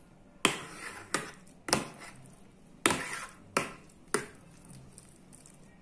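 A metal spoon knocking against the sides of a metal baking pan while spreading a soft ricotta and spinach filling: six sharp knocks, each ringing briefly, spread over about four seconds.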